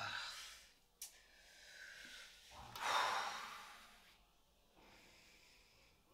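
A young man's heavy breathing: a breath at the start, then a long, loud breath out about three seconds in. A short click comes about a second in.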